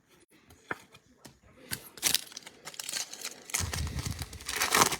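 Foil trading-card pack wrapper being torn open and crinkled by hand: a few light clicks, then crackling and rustling from about two seconds in, loudest near the end.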